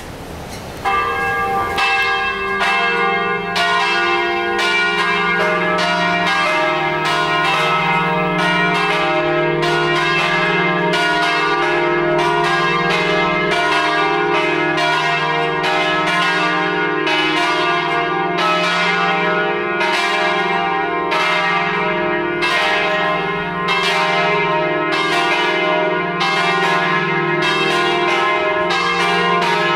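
Three Paccard bronze church bells tuned E-flat, F and G, swinging and ringing all together in a full peal (plenum) calling to mass; the peal starts about a second in, with overlapping strikes several times a second.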